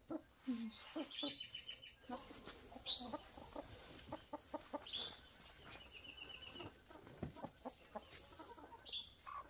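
Chickens packed in wire cages clucking, with a few short sharp squawks and a quick run of chattering calls about six seconds in.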